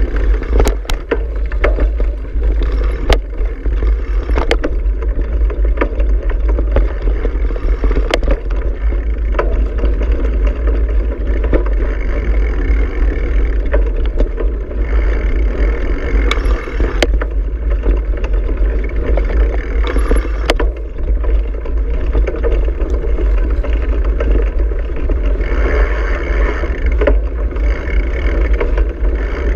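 Bicycle rolling over a rough dirt track, heard from a camera mounted on the bike: a steady low rumble with sharp clicks and rattles now and then from bumps.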